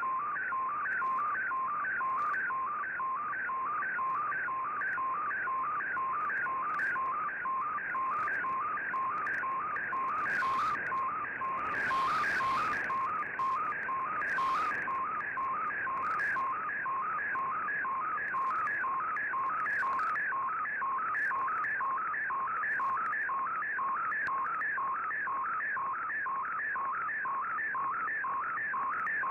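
Shortwave radio picture transmission received on an Icom IC-R8600: a fast, evenly repeating warble of tones over a steady low tone, one sweep per scan line, as a picture is decoded line by line, over light receiver hiss.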